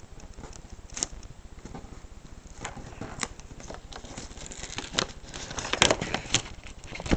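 Paper rustling and crinkling as fingers roll it tightly into a tube, with scattered small crackles and clicks that grow thicker and louder about four to six and a half seconds in.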